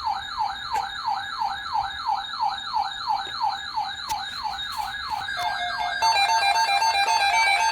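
Electronic siren-like alert tone, a falling sweep repeated about four times a second. Around six seconds in, music with several stepping notes takes over.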